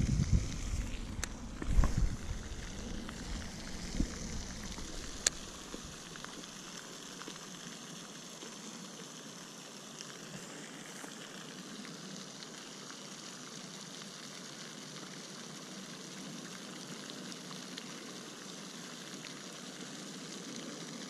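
Steady hiss of water spray from a pond fountain, with bumps and thuds of the rod and camera being handled during the first few seconds and a sharp click about five seconds in.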